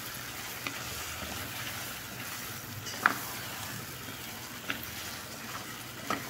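Chicken pieces sizzling in oil and liquid in a pot as a wooden spatula stirs them, with a few light knocks of the spatula against the pot, the clearest about three seconds in.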